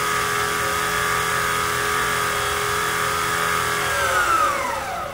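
Precision Matthews PM-25MV milling machine's motor and belt-and-pulley speed-doubler drive running steadily at close to 5,000 RPM, a speed the owner says it is not happy at. About four seconds in it is slowed down and its pitch falls.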